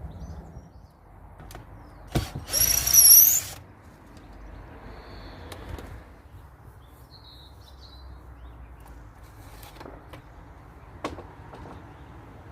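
A cordless drill-driver runs for about a second, its motor whine dipping and rising, as a screw is backed out of a wooden trellis. A click comes just before it, and a few light knocks follow later.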